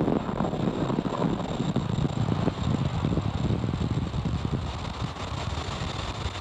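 Falcon 9 first stage's nine Merlin 1D engines thrusting during ascent: a steady, rough low rumble that eases slightly, with a faint steady high tone above it.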